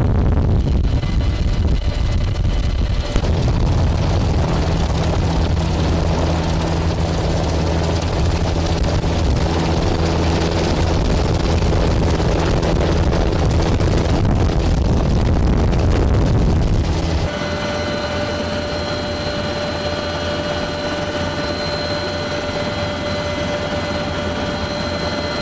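Helicopter cabin noise in flight: the rotor and engine run steadily, loud and dense with a low hum. About two-thirds of the way through it changes to a somewhat quieter, steadier sound with a high whine.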